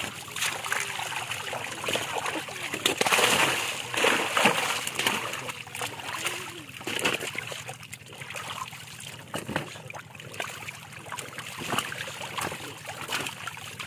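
Many large fish thrashing in shallow water inside a drawn-in seine net, making a continuous churning splash with irregular sharper splashes as they are handled. The splashing is heaviest a few seconds in.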